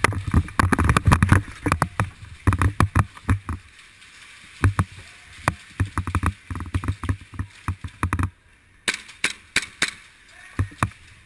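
Indoor airsoft skirmish: a rapid, irregular run of sharp clicks and knocks mixed with heavier thuds, from airsoft guns firing and gear banging against a body-mounted GoPro during a push. Near the end, after a brief pause, comes a quicker series of sharp snaps without the thuds.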